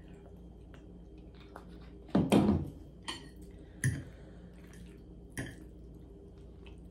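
Tableware handled during a meal: a louder knock about two seconds in, then a few lighter clinks of a metal fork against a plate as food is scooped up.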